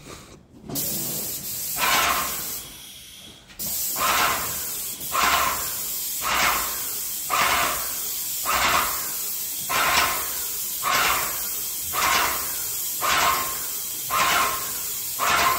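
Graco 395 electric airless paint sprayer's gun hissing as it sprays paint, starting just under a second in and dropping out briefly about three seconds in. It then runs on with a regular swell about once a second.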